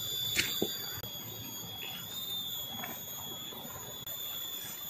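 Forest insects keeping up a steady high-pitched drone of several held tones, with a faint background hiss and a sharp click about half a second in.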